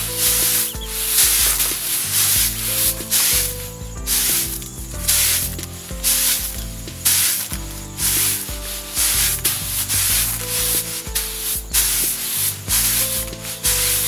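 Threshed rice grain swishing and rustling in a woven bamboo winnowing tray as it is tossed and fanned to blow off the chaff, in a rhythmic swish about once or twice a second.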